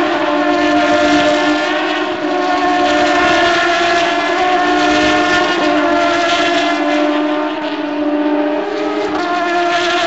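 Open-wheel single-seater race car engines running at high revs as the cars pass, several overlapping engine notes whose pitch steps up and down repeatedly through the corner.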